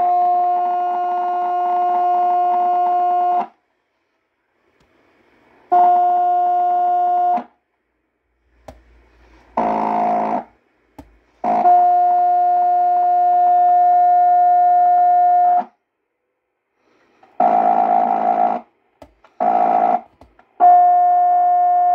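Cobra 29 WX NW ST CB radio's speaker giving out a steady test tone from an injected signal-generator signal. The tone cuts out and comes back several times, with a few short bursts of rough static between, as the circuit board is pressed. This is an intermittent connection, which the owner puts down to a bad solder joint on the board.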